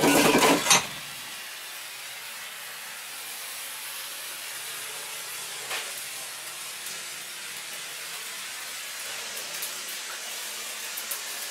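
Red hand-held flare burning with a steady hiss, after a loud rush of noise in the first second.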